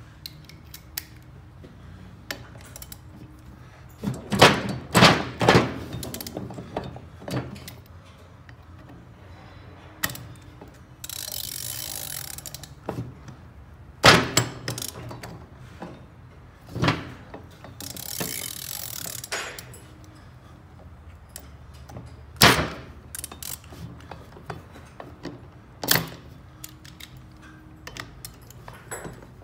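Hand tools working on the bare aluminium cylinder head of a BMW R1200GS boxer engine: a wrench and Torx driver clinking and knocking against the metal as bolts on the cam carrier are broken loose, with sharp clicks scattered throughout. Twice there is a steady rasping noise of about two seconds.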